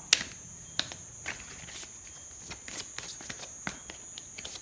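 Tarot cards being handled: scattered light clicks and taps as cards are picked up and laid down, the sharpest just after the start, over a steady high-pitched tone.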